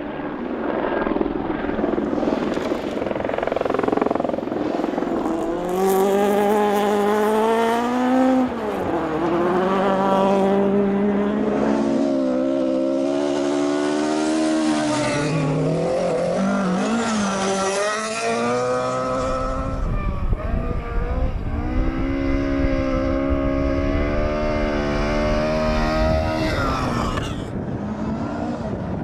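Ford Escort RS 1800 rally car's four-cylinder engine at full throttle. It revs up and drops in pitch at each gear change, with the revs rising and falling every few seconds, and a heavier low rumble joins in over the second half.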